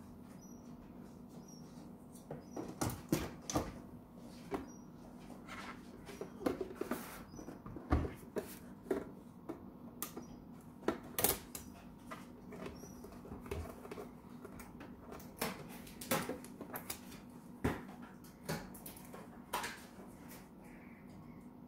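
Irregular clicks, taps and knocks of hard plastic as a Nescafé Dolce Gusto Genio S capsule coffee machine and its clear water tank are handled and fitted in place, over a steady low hum.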